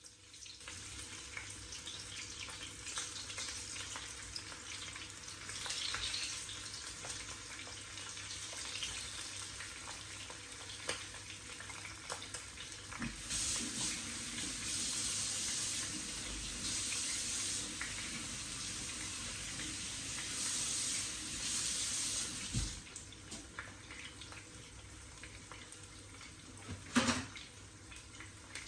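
Water running from a tap into a sink, the flow louder in several stretches through the middle and quieter after, with a sharp knock near the end.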